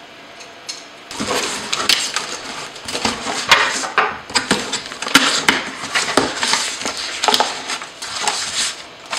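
Cardboard shipping box being opened by hand: packing tape torn, flaps pulled back and paper inserts rustling, with many sharp crackles and taps starting about a second in.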